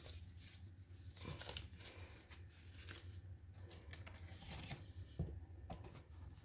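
Faint paper-and-cardboard handling: rustles and scattered light taps as rolled paint-by-numbers pictures are packed back into cardboard tubes.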